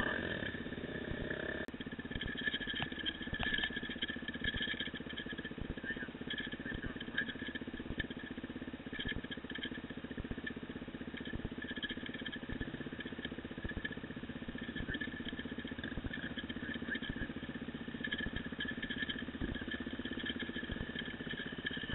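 Dirt bike engine running steadily as it rides a rough forest trail, heard from a camera mounted on the bike or the rider's helmet.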